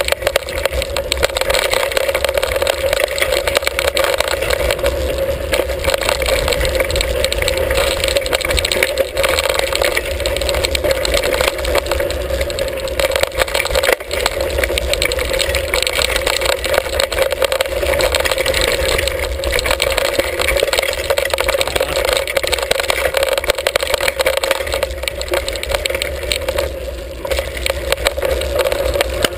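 Hardtail mountain bike ridden over a rocky dirt singletrack, heard through a handlebar-mounted camera: a loud, steady rushing noise with constant rattling and clicking of the bike over the rough ground.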